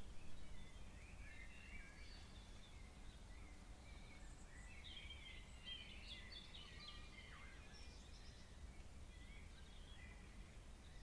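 Birds chirping and twittering faintly, many short calls overlapping, with a busier flurry of calls about halfway through, over a steady low background noise.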